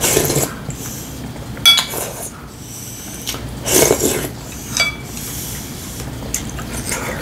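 A man slurping soup broth from a wooden spoon in a few short, noisy sips, with light clinks of the spoon against the ceramic bowl.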